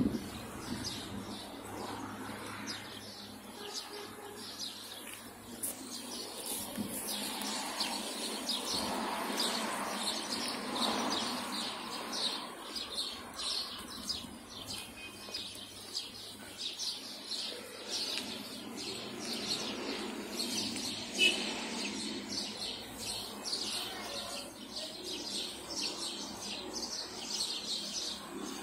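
Small birds chirping in quick, repeated short calls over a steady background of outdoor noise.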